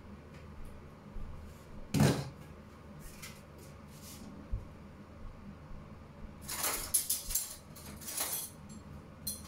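Kitchen clatter: a sharp knock about two seconds in, then a run of quick clicks and rattles lasting about two seconds, like items being handled on a counter or in a cupboard.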